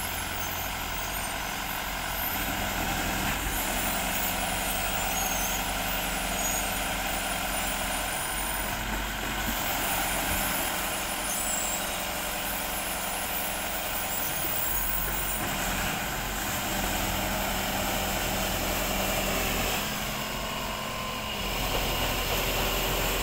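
Engine of an aquatic weed-harvester boat running steadily while the machine works through thick grass and weeds. The sound shifts briefly a couple of seconds before the end.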